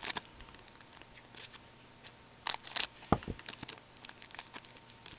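Crinkling and tearing as a hockey card pack's wrapper is handled and opened, with cards being shuffled, in scattered crackles and one soft thump about three seconds in.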